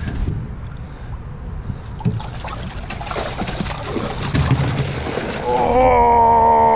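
Water sloshing and splashing as a keep net full of carp is hauled up out of the water over a boat's side. About five and a half seconds in, a person's voice breaks in with one long, steady held note, louder than the water.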